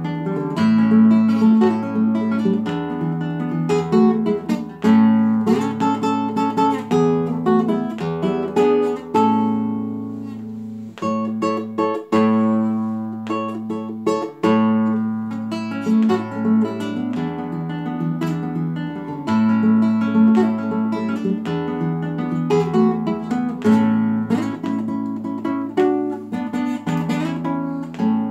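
Solo nylon-string classical guitar playing an Argentine gato folk dance, with plucked melody over bass notes and strummed chords, easing into a softer passage about ten seconds in.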